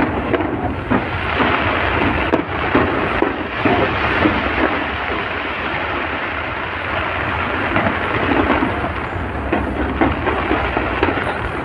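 Fireworks display going off continuously: a dense crackle of many small pops over low booms.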